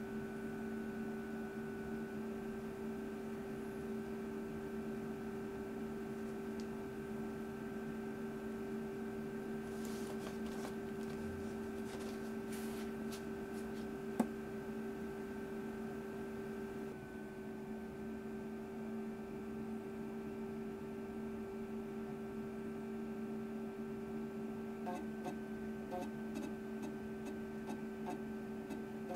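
Steady electrical hum from a running Macintosh SE/30 compact Mac, with a few faint clicks around the middle and again near the end.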